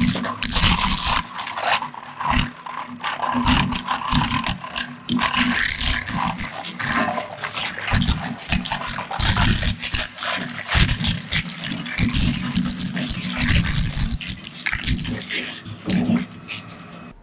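Twin-shaft shredder's toothed cutters chewing up a hard plastic toy scooter: dense cracking and crunching of breaking plastic over the steady hum of the machine. It thins out and stops near the end as the last pieces pass through.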